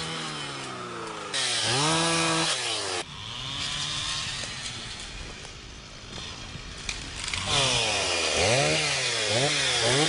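Small two-stroke engine of a hand-held power tool revving up and down over and over, with a hiss of cutting. The sound changes abruptly a few times.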